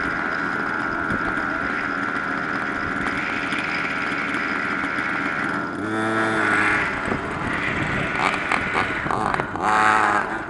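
Small engine of an RC off-road buggy running steadily with a high whine, then revving up and down from about six seconds in.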